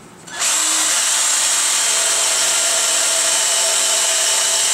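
Power drill running at speed, its bit, coated in Boelube cutting paste, boring a hole through a metal suspension bracket. The drilling starts about half a second in and then runs steadily and loud.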